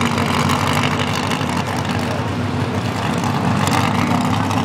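A big truck engine running loud and steady with a deep note. The sound comes up just before and holds without a rev or a break.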